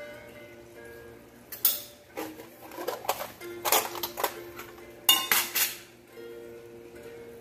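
Background music with held notes, over a handful of sharp knocks and clinks as a round metal pasta cutter is pressed down through the dough onto the board. The loudest knocks come about one and a half seconds in and again around five seconds in.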